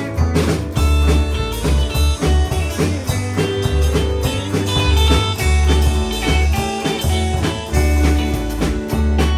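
A band playing a song: strummed guitar over deep bass notes and a steady drum beat.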